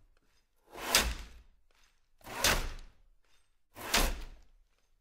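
Ice saw cutting through thick lake ice in slow, even strokes, about one every second and a half. There are three strokes, each a noisy push that swells and fades.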